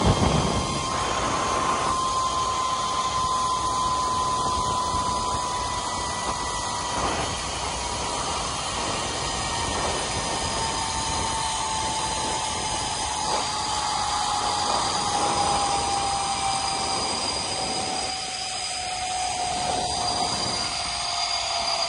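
Zip line trolley's wheels running along the steel cable with a steady high whine that slowly falls in pitch, over the rush of wind on the microphone at speed.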